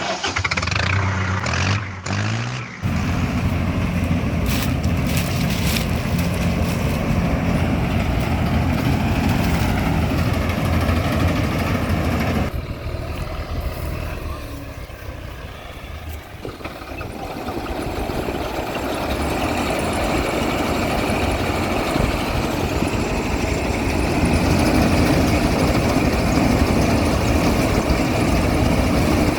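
Rice harvester's diesel engine running steadily. It drops quieter in the middle and grows louder again toward the end.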